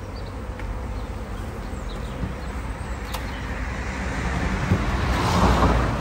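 Honey bees from a swarm buzzing around a small nucleus hive. Toward the end a rush of noise swells louder over the buzzing.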